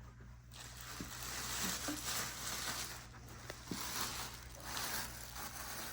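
Plastic packaging rustling and crinkling in several bursts as the carpet cleaner's parts are unwrapped.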